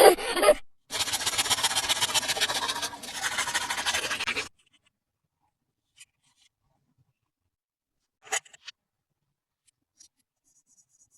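Toy packaging being handled and opened: a rapid, even, scratchy rasp lasting about three and a half seconds. A few small clicks follow.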